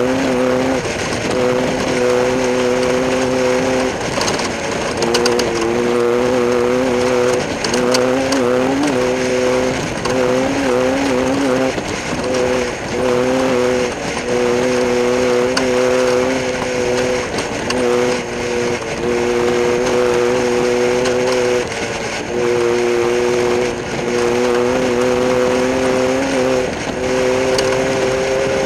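Class 10 off-road race car engine running hard at high revs, its steady note dropping out briefly every one to three seconds and coming straight back.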